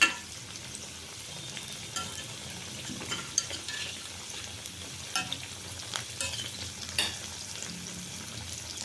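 Masala vadas deep-frying in a kadai of hot oil: a steady sizzle, broken by sharp clicks every second or two, the loudest right at the start.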